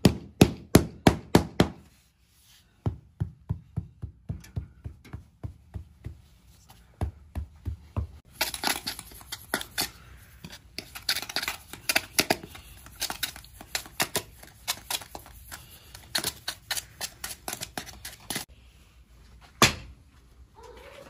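A hammer tapping rapidly around an upturned aluminium basin bedded in moulding sand, then a trowel scraping and tapping the sand at the basin's rim. A single heavy clunk near the end.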